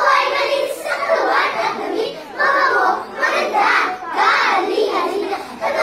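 A group of young children reciting a poem together in unison, in short chanted phrases.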